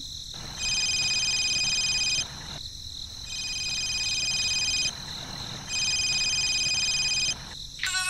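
A telephone ringing with a fast electronic trill, three rings of about one and a half seconds each, about a second apart.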